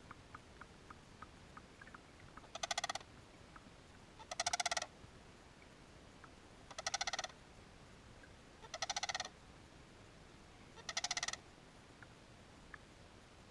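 An animal's short rattling call, repeated five times about two seconds apart, each call a rapid run of pulses lasting under half a second. There are a few faint ticks in the first couple of seconds.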